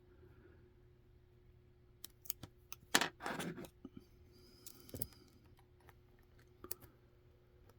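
Steel lock-pick hook clicking and scraping against the pin stack inside a 5-pin Winkhaus rim cylinder held under tension: a few scattered sharp clicks, a louder click about three seconds in followed by a short scraping rattle, then a couple more clicks.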